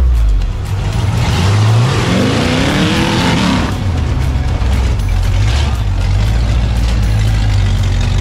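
Off-road rock-crawler buggy engine revving, its pitch climbing and falling again about two to three seconds in, with a rush of hiss from tyres or exhaust as it rises, then running steadily at low revs.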